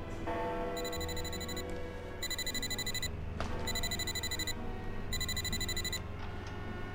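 Mobile phone ringing: a high electronic ringtone in four short bursts, about one every 1.4 seconds, over soft background music.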